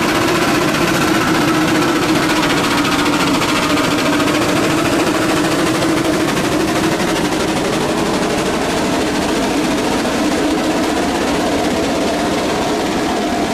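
Antique steam traction engine running steadily under belt load, driving a long flat belt to a power-testing device: a continuous, fast mechanical clatter over a steady hum.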